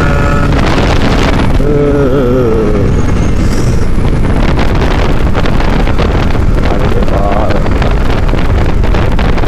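Heavy wind buffeting on an action camera's microphone while riding a motorcycle at road speed, with the Kawasaki Ninja RR 150's two-stroke single-cylinder engine running underneath.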